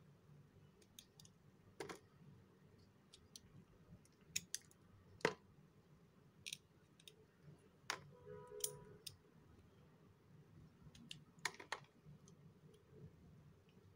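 Faint, sparse crackles and snaps as brittle flakes are peeled and broken off a block by hand, about half a dozen sharp clicks with the loudest about five seconds in. A short squeak comes a little after eight seconds.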